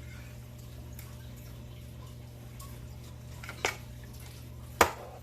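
Hand caulk gun clicking as it is worked: two sharp clicks, the second louder, over a steady low hum.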